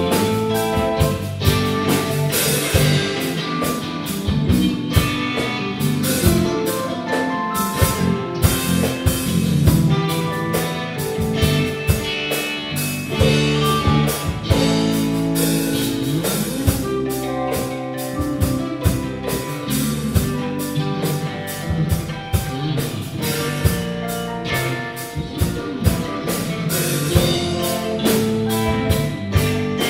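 Live band playing a song on electric guitar, bass guitar, keyboard and drum kit, with a steady beat of drum hits.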